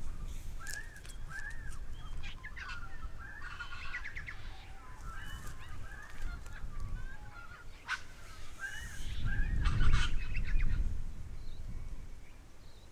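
Wild birds calling, a short arched call repeated over and over amid other chirps. A loud low rumble on the microphone about nine seconds in lasts a couple of seconds.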